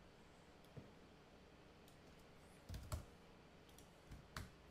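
A few faint computer keyboard and mouse clicks: one a little under a second in, two near the middle and two near the end, over near silence.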